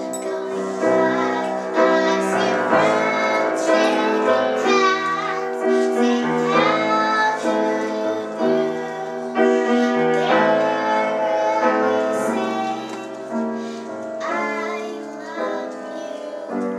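A young girl singing a song, accompanied on a grand piano.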